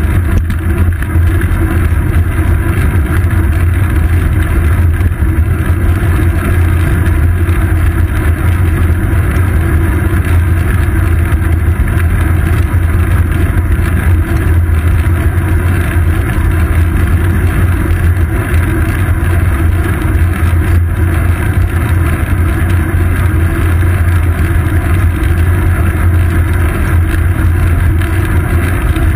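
Steady, loud wind and road rumble on a GoPro Hero 2 mounted on a moving road bike's seat post, a deep even drone with no break or change.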